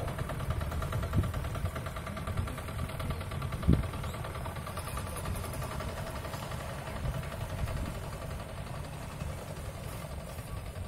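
Small wooden fishing boat's engine running with a steady, even beat, fading slightly as the boat moves off. A short thump about four seconds in.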